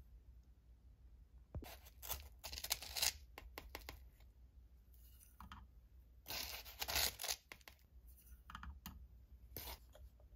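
Plastic spoon scraping and scooping powder in a plastic tub, with rustling and clicking as the tub and its lid are handled, in three short bursts.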